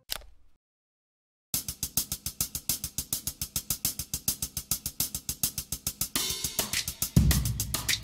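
Background music: after a short silence, a drum beat starts with fast, even hi-hat ticks, and heavy bass-drum hits join near the end.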